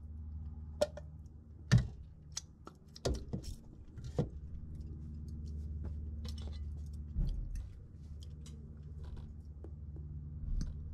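Clacks and clinks of a hand citrus juicer and cutlery being set down and picked up on a table, a dozen or so sharp knocks with the loudest about two seconds in, over a steady low hum.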